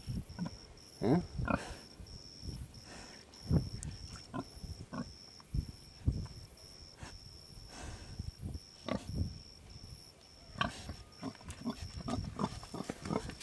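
Red Wattle sow grunting in short, irregular grunts while rooting in the dirt.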